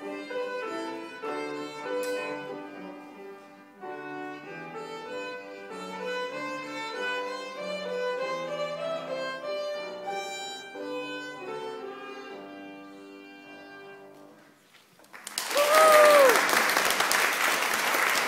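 Violin played with piano accompaniment, a melodic line over low sustained piano notes, which winds down and fades out about fourteen seconds in. Audience applause then breaks out suddenly, with one brief whoop that rises and falls in pitch.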